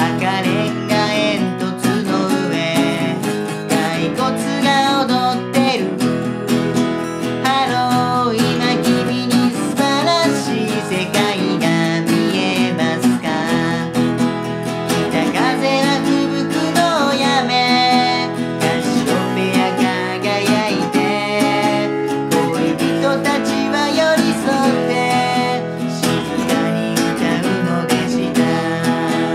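A man singing a Japanese song to his own strummed steel-string acoustic guitar: steady chord strumming under a sung melody, with no breaks.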